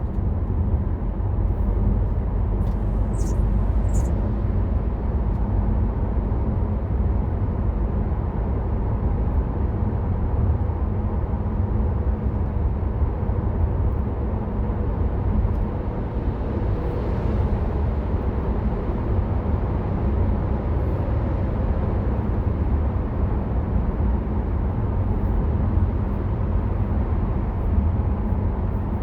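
Steady low rumble of a BMW 520d GT (F07) driving along, heard from inside the cabin: road and tyre noise with the diesel engine underneath.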